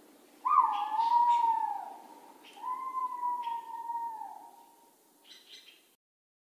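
Two long, drawn-out animal cries, one after the other, each sliding slightly in pitch, over a faint low hum; the sound then cuts off suddenly.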